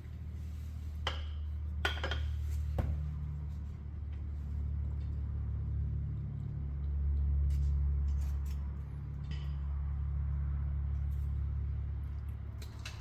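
Small hard clinks and clicks, a few near the start and fainter ones later, as the PVC primer and cement cans are handled, over a low steady rumble that swells and fades.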